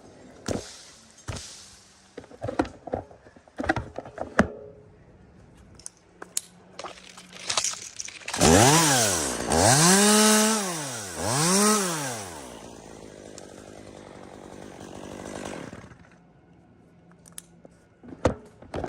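Two-stroke chainsaw revved up to full speed and back down three times, then running lower for a few seconds before cutting off. A scatter of knocks and clicks comes before it.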